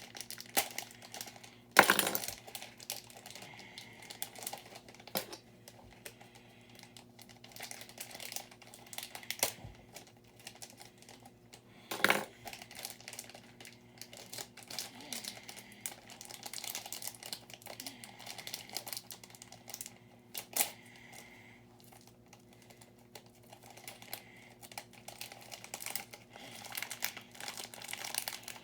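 Small plastic building bricks being handled and pressed together: scattered light clicks and rattles, with three sharper clacks spread through.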